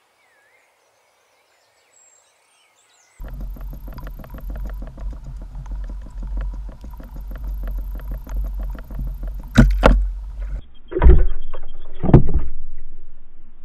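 Underwater camera sound, starting about three seconds in: a steady low rumble of water with fast fine clicking. Near the end come three heavy thumps about a second apart as a pike strikes at the hookless lure.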